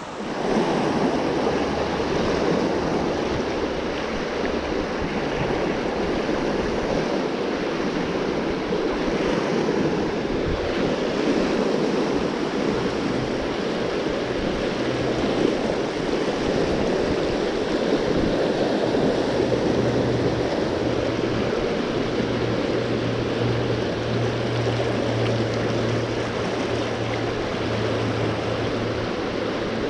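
Fast water rushing steadily through the concrete aqueduct channel. A low steady hum joins in about halfway through.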